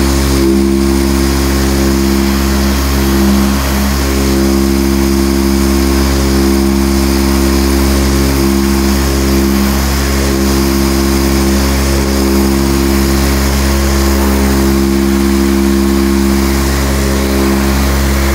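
Random orbital sander running steadily with a whine and a hiss, sanding body filler off a car's door edge down to the steel, then cutting off abruptly at the end.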